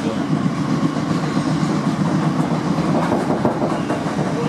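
Steady running noise heard from inside the carriage of a moving electric multiple-unit passenger train as it travels between stations.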